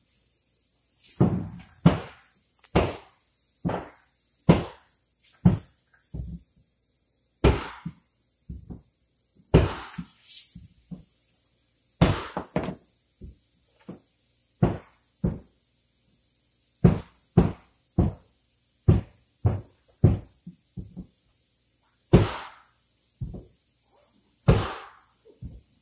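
A long series of sharp knocks and thuds at uneven intervals, roughly one or two a second, some louder than others.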